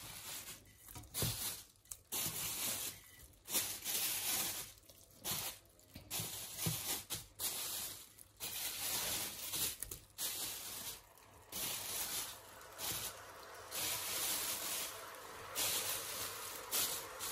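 Plastic bag crinkling and rustling in short, irregular bursts as it is handled.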